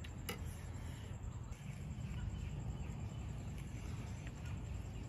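Low steady background rumble with one sharp click about a third of a second in, then a few faint taps of a knife cutting grilled pork on a wooden chopping block near the end.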